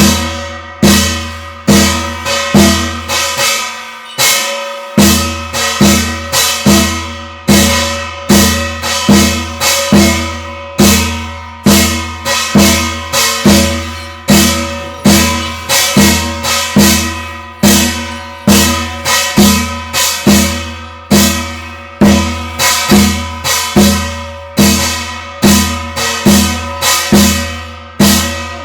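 Korean shamanic gut ritual music: a drum and ringing metal percussion struck in a steady beat, about one and a half strikes a second. The low drum drops out briefly about four seconds in.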